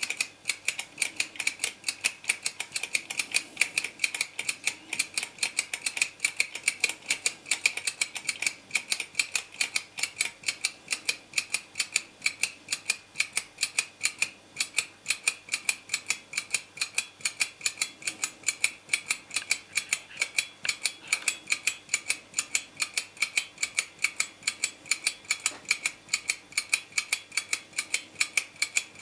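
Two wind-up tin handstand clown toys running: a rapid, even clicking from their clockwork mechanisms and tin hands, over a steady high whine.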